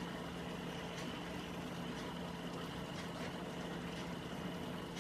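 Pressure-cooker still boiling on a gas burner: a steady low hum with a faint high whine above it, and a few faint ticks.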